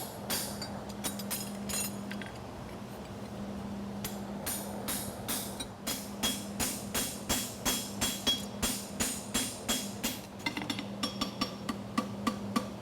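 Hand hammer striking a steel horseshoe on the anvil while fullering the nail groove: a few blows, a pause of about two seconds, then steady blows about three a second that turn quicker and ring near the end, over a steady low hum.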